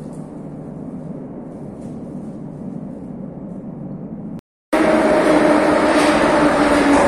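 Steady low rumble of a metro station platform. About four and a half seconds in, after a brief cut, a metro train is much louder, running alongside the platform with a motor whine that falls slowly in pitch as it slows.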